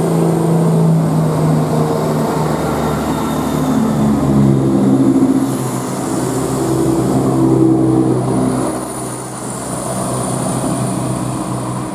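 Class 168 diesel multiple unit's underfloor diesel engines working hard as the train pulls away from the platform. The engine note climbs in pitch a few seconds in as it gathers speed, then eases slightly near the end.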